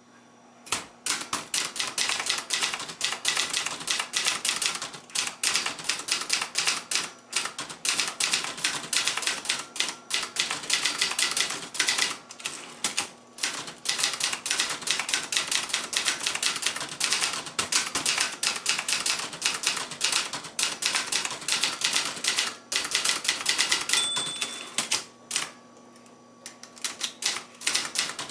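A 1975 Brother Charger 11 portable manual typewriter being typed on, a fast, uneven stream of key strikes. A brief ringing tone comes about 24 seconds in, then the typing stops for about a second and starts again.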